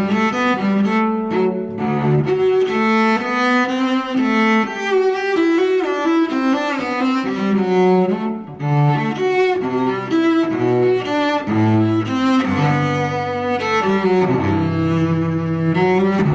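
Instrumental music played on bowed strings: a melody of held notes moving step by step over a lower line.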